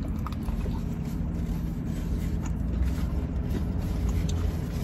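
Steady low rumble inside a car, with faint chewing and mouth clicks as a slice of pizza is eaten.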